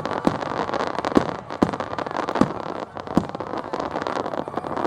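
Fireworks in a finale barrage: a dense, continuous crackling with several louder sharp bangs about a second apart.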